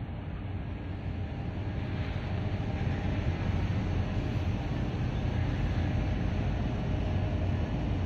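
A steady low mechanical drone with a faint hum in it, growing slightly louder over the first few seconds and then holding steady.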